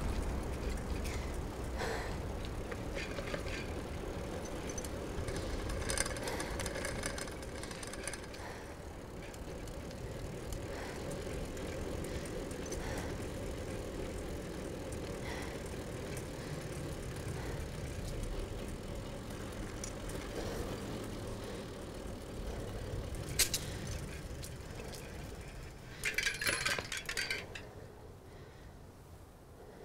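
A bicycle being ridden at night: tyre noise on the road with scattered small clicks and clinks from the bike over a steady low hum. A sharp clink comes about 23 seconds in and a short burst of clattering follows a few seconds later, then the sound fades.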